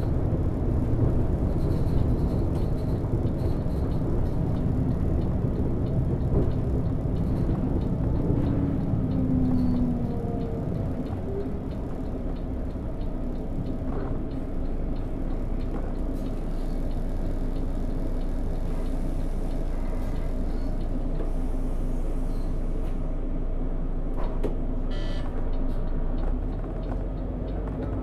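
Volvo B12BLE bus with its DH12E diesel engine heard from the driver's seat on the move: steady engine and road rumble, louder for the first ten seconds and then easing a little, with a short tone gliding in pitch around the ninth second. A faulty dashboard display adds a buzz, and a quick run of ticks comes near the end.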